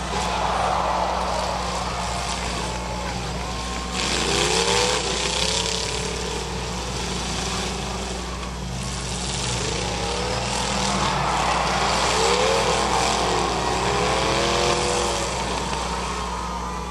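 Demolition derby cars' engines revving up and down, several at once, with repeated rising and falling pitch, over a steady low hum.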